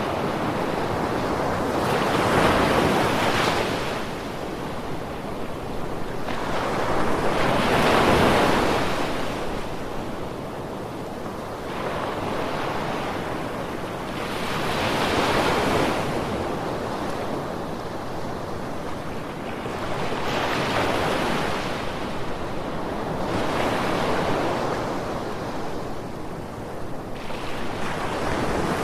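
Ocean waves breaking and washing on a beach, one surge every five or six seconds, each swelling and then fading back under a steady rush of surf.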